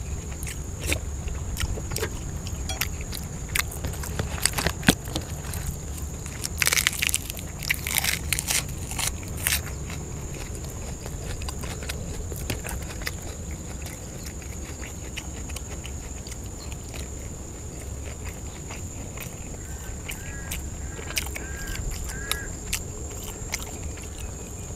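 Close-miked chewing and biting of grilled Thai fermented pork sausage: wet, crackly mouth sounds, with a cluster of louder crackling bites about seven to nine seconds in.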